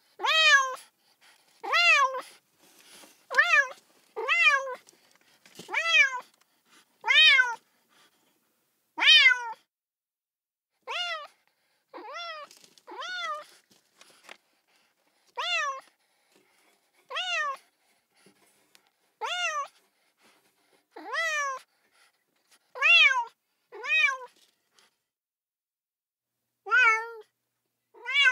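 A kitten meowing over and over: about eighteen short, high meows, each rising and then falling in pitch. They come one every second or two, with a pause of about two seconds near the end.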